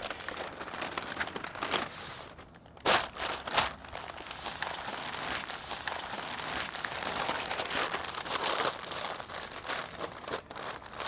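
Butcher paper crinkling and rustling as it is folded tightly around a pork butt, with two louder crackles about three seconds in.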